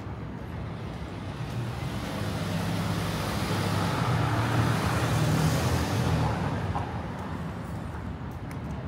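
A road vehicle passing close by, its engine and tyre noise building for a few seconds and then fading, over steady city traffic.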